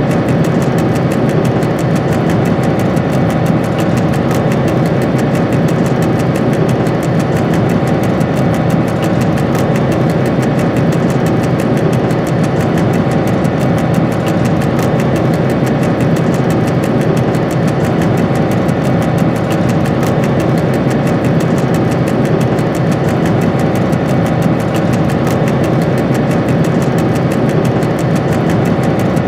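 Dr12 diesel locomotive's engine running steadily, heard from inside the cab, with no change in pitch or level.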